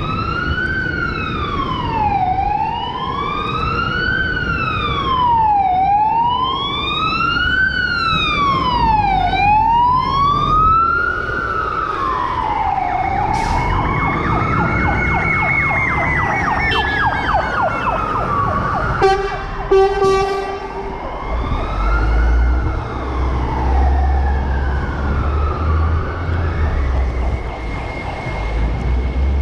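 Emergency vehicle siren wailing, its pitch rising and falling about every three and a half seconds, with a second, steadier high siren tone in the middle. About two-thirds in, two short horn blasts sound, and then a low vehicle engine rumble sets in under the siren.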